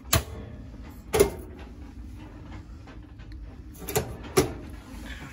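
Metal oven door of a yacht's gimballed galley stove being handled and opened, giving four sharp clunks: two about a second apart at the start, two close together near the end, over a steady low rumble.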